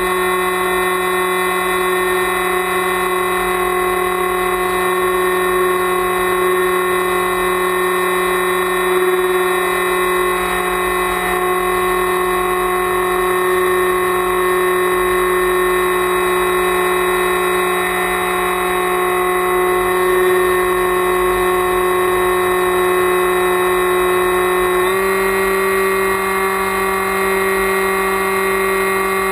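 Electric motor and propeller of an FPV flying wing, heard from its onboard camera: a steady whine that steps up in pitch about 25 seconds in as the throttle is raised.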